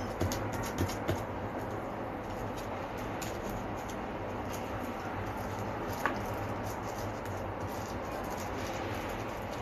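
Hands folding and pinching soft yeast dough closed over a mashed-potato filling on a plastic-wrapped counter: faint rustling with a few small clicks in the first second and a sharper one about six seconds in, over a steady background hiss.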